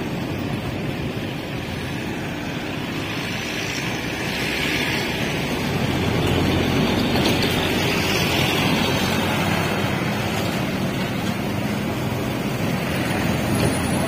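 Diesel engine of a Niigata NFB6C asphalt finisher running steadily amid road traffic noise, growing louder from about halfway through.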